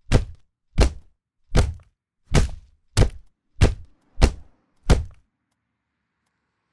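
Heavy, dull thuds of blows landing in steady succession, eight strikes about two-thirds of a second apart, then stopping a little past five seconds in.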